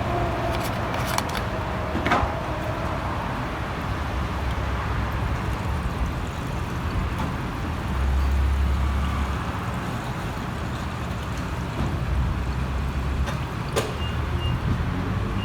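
Steady low rumble of motor vehicles, with a few sharp clicks and knocks about a second and two seconds in and again near the end.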